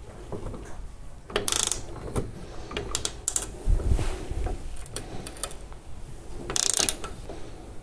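Matco double flex-joint box wrench ratcheting on a bolt, in several short bursts of rapid clicking, with lighter metal knocks between the bursts.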